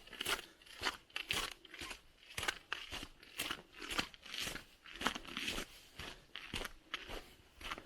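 Footsteps crunching on snow at a steady walking pace, about two steps a second.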